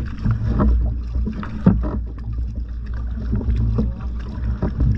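Double-bladed kayak paddle dipping into and pulling through the water, with a splash and drip about once a second as the strokes alternate sides. A steady low rumble runs underneath, from wind on the microphone.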